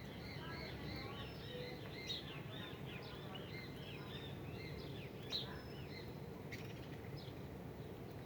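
Small birds chirping, many short arched chirps overlapping in quick succession, thinning out after about six seconds, over a steady background hiss. Two sharp clicks stand out, one about two seconds in and a louder one past five seconds.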